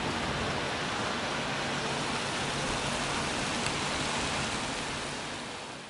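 Heavy rain pouring steadily over the city, a dense even hiss that fades out near the end.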